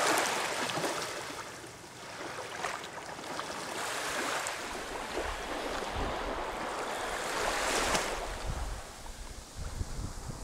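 Small waves washing up on a sandy beach in shallow water, the wash swelling about every four seconds. Wind rumbles on the microphone in the second half.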